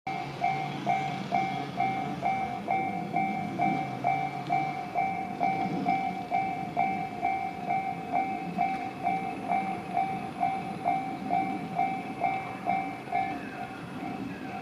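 Japanese railway level-crossing warning bell ringing, a two-tone electronic ding repeating about twice a second, which signals that a train is approaching and the barriers are down. Near the end its higher tone drops out and the strikes grow fainter.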